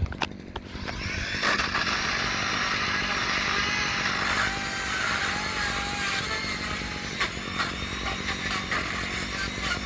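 Chainsaw running steadily at high speed as it cuts through a tree branch, coming up to speed about a second in after a few short clicks.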